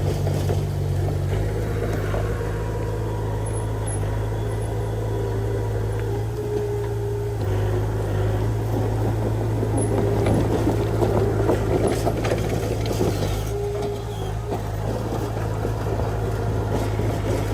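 Diesel engine of heavy earthmoving equipment running steadily, with rattling noise that grows busier around the middle.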